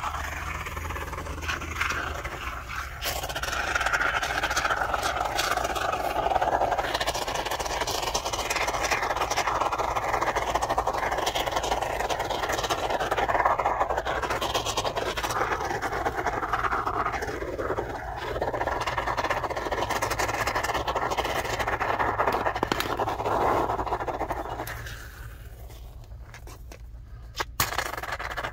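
Aerosol can of expanding spray foam dispensing through its straw nozzle into a wall gap: a continuous rough hiss that fades away about 25 seconds in.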